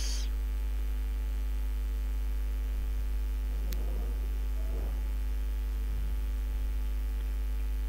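Steady low electrical mains hum with a few faint higher tones above it, and a single faint click about halfway through.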